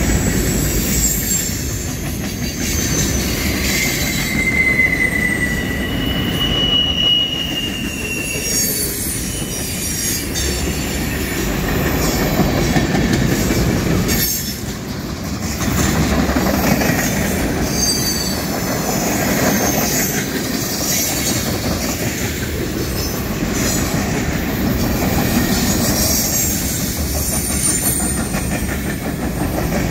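Freight cars rolling past close by: the steady rumble of steel wheels on rail, with two short high wheel squeals about four and seven seconds in.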